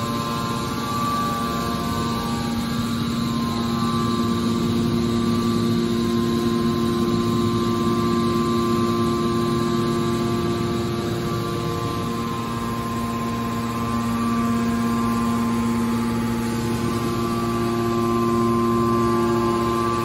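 Hydraulic power unit of a scrap-metal baler running: the electric motor and hydraulic pump give a steady hum with a constant whine, the tones weakening somewhat in the middle and coming back near the end.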